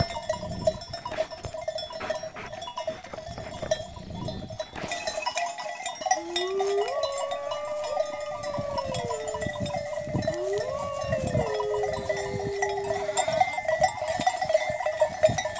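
Sheep-flock bells ringing steadily. About six seconds in and again near ten seconds come two long animal calls that slide up and fall away in pitch.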